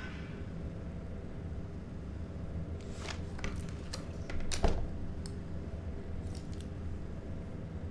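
Light clicks and knocks as a metal-chassis RC car is turned over and handled on a wooden table, the loudest knock about four and a half seconds in, over a steady low hum.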